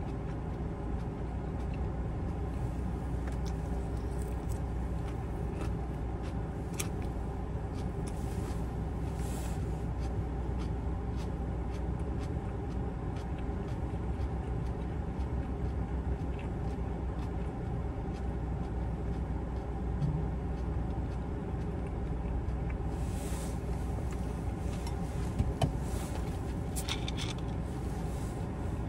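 Steady low hum inside a parked car, with scattered light clicks of a plastic fork and food container during eating. A pair of sharper clicks comes near the end.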